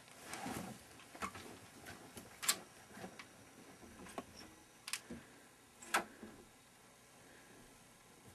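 Faint footsteps, shuffling and scattered sharp clicks and knocks as people get up from chairs and walk out through a door.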